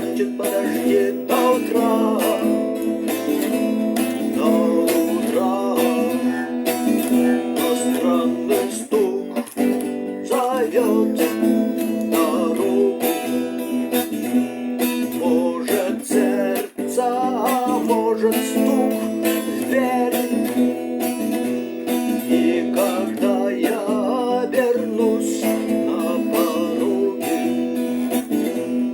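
Acoustic guitar strummed steadily through a song's chords, with a melody line moving above them.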